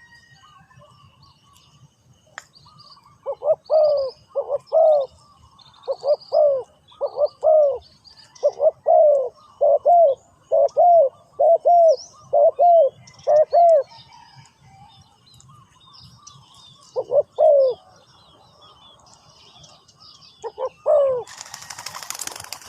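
Spotted dove cooing: a long run of paired low, throaty coo notes repeated for about ten seconds, then two more short phrases, with faint chirps of other birds behind. Near the end a sudden rushing noise cuts in.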